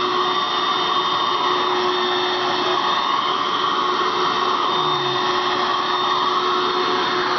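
Red Dirt Devil vacuum cleaner running steadily: a continuous rush of air with a steady whine in it.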